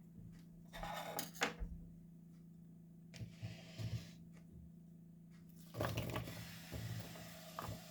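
Kitchen handling noises during food preparation: three short bursts of scraping and rustling with a couple of sharp clicks, over a steady low hum.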